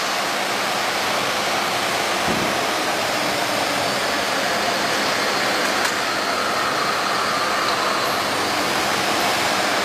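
Steady rushing noise of workshop machinery running, with a faint thin whine joining about six seconds in.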